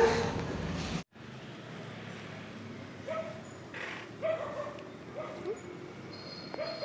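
A dog giving several short yips over a steady background hum.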